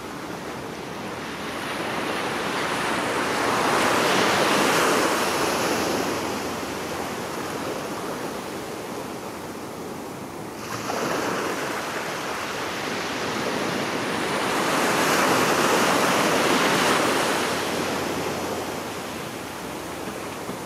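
Ocean surf washing over shoreline rocks, a steady rush that swells and fades twice. There is a sudden jump in the sound about halfway in.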